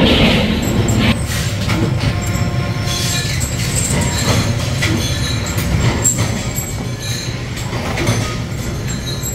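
Workshop machinery running with a steady low rumble, with scattered metallic clinks and short squeals over it.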